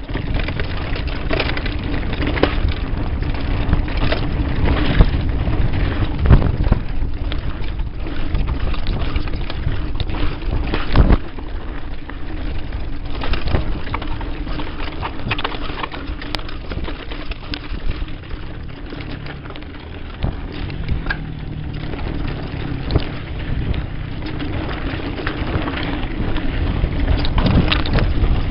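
Mountain bike descending a rough dirt trail at speed: wind buffeting the microphone, tyres rumbling over dirt and loose stones, and the bike rattling with frequent sharp knocks over bumps.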